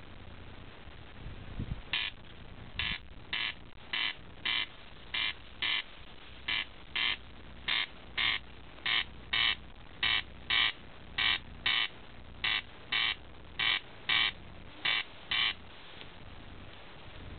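Corncrake calling its rasping two-note crex-crex, the notes coming in pairs about twelve times over, starting about two seconds in and stopping near the end.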